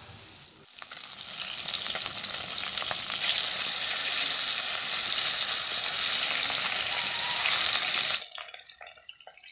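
Silver carp pieces frying in hot mustard oil in a kadai: a loud sizzle that builds over the first few seconds, holds steady, and then cuts off suddenly near the end, leaving a few faint ticks.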